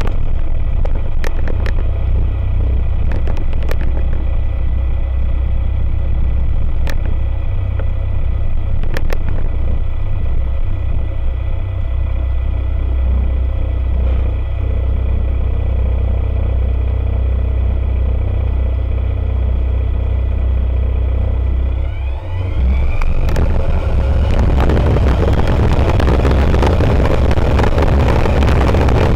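Rotax 912 ULS flat-four engine and propeller of an Aeroprakt A22LS Foxbat ultralight running steadily at low power, heard from inside the cockpit, with a few light clicks in the first ten seconds. About 23 seconds in the engine note rises as the throttle is opened, and the sound grows louder and fuller with engine and wind as power comes up for the takeoff run.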